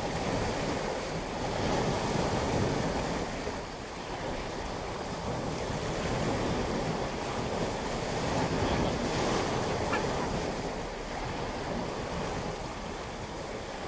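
Waves from a large ferry's wake breaking over a rocky shoreline and washing through the shallows, swelling twice as successive waves come in.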